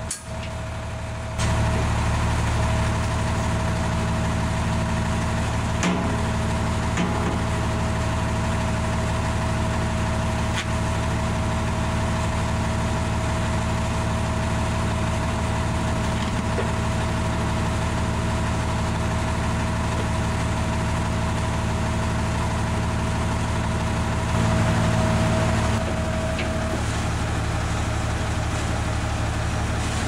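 Tractor engine idling steadily, with a constant high whine running over its low note. It gets briefly louder about 25 seconds in, and the whine drops away a little after.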